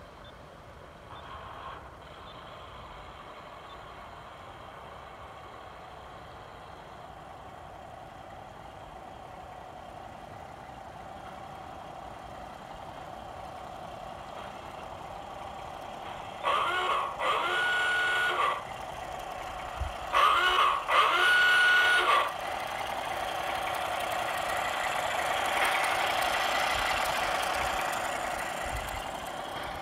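Model T Ford railcar running along the track, its engine hum slowly growing louder to a peak about 26 seconds in, then fading as it passes. Past the middle, the horn sounds twice, each blast about two seconds long and rising in pitch at the start.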